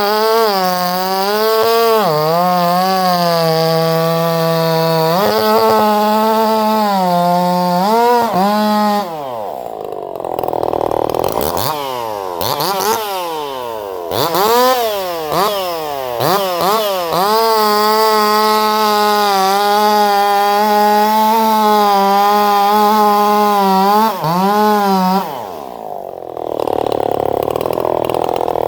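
Small engine, freshly rebuilt with a new piston and crankshaft, running at high revs with a wavering pitch. Its revs drop back about nine seconds in, are blipped up and down several times, and are held high again before dropping off near the end.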